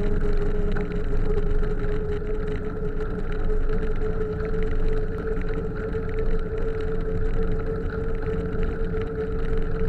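Wind noise and road rumble on the microphone of a camera riding on a moving bicycle, with a steady hum running underneath.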